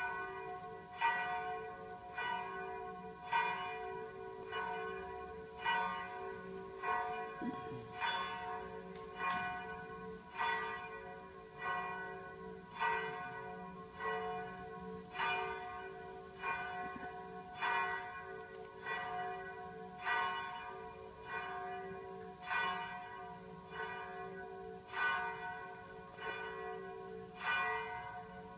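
Church bells ringing in a steady, even rhythm, a stroke a little more often than once a second, with a low hum carrying on between strokes.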